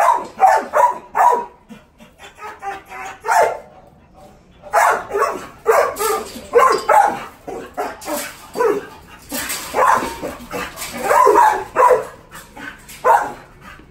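Shelter dogs barking over and over in many short, sharp barks. The barking thins out briefly about two seconds in and grows dense again from about five seconds in.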